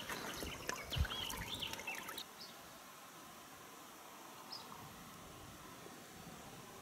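Short bird chirps and a few clicks and knocks, then after about two seconds only a faint steady hiss of riverside ambience, with one more brief high chirp.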